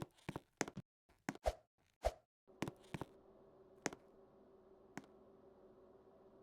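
A quick run of clicks and knocks, then a ceiling fan's steady motor hum with a held tone starts suddenly about two and a half seconds in, broken by a few single clicks.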